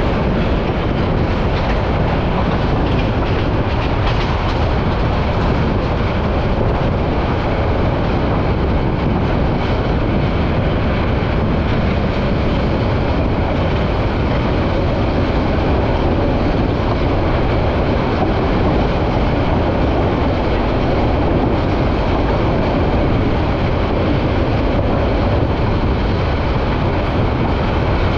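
Passenger train running along the track, heard from inside a carriage: a steady, loud noise of wheels on the rails with faint scattered knocks.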